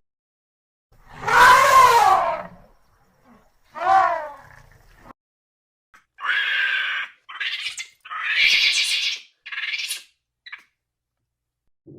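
Animal calls, one after another with clean silent gaps: a loud wailing call with a falling pitch, a shorter one like it, then several quicker, harsher, higher-pitched calls.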